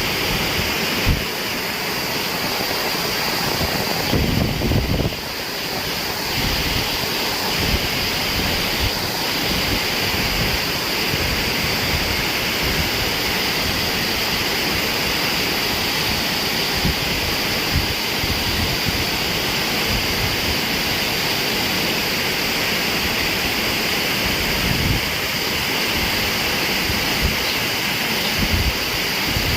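Small waterfall: a steady rush of falling, splashing water.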